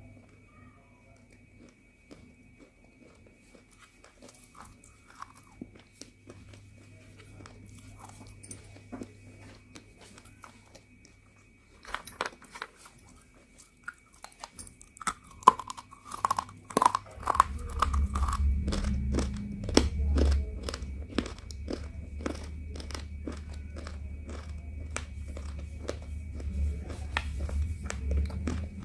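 Pieces of roasted multani mitti (fuller's earth clay) being bitten and chewed close to the microphone. There are sparse soft crunches at first, then dense, rapid crunching from about twelve seconds in, with a low rumble under it from about eighteen seconds.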